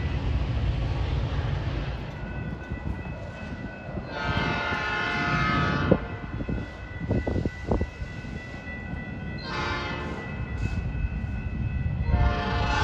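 Metra train's locomotive air horn sounding a chord over the train's low rumble: a long blast, a short one, then another long blast starting near the end. A few sharp clacks come between the first and second blasts.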